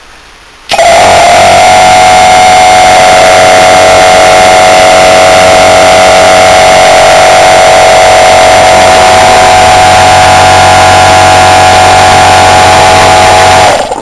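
Two-cylinder Kirby reciprocating refrigeration compressor, its three-phase motor run on single phase through a start capacitor, switched on about a second in and running loudly and steadily, pumping air, with a steady hum; it cuts off just before the end.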